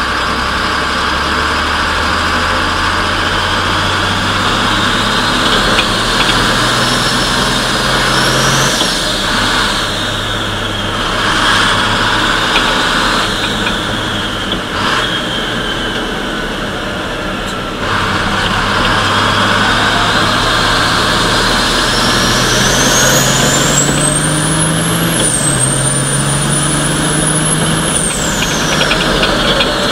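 Racing truck's turbodiesel engine heard from inside the cab, pulling hard and shifting up about three times, with a high turbo whistle that rises with engine speed.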